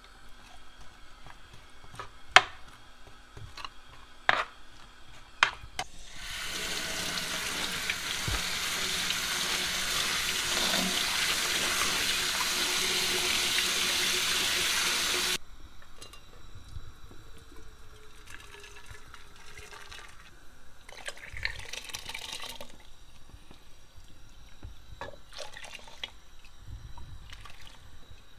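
Kitchen tap water running into a plastic colander of red beans in a stainless steel sink, rinsing them; the rush starts about six seconds in and cuts off sharply about nine seconds later. Before it come three sharp knocks.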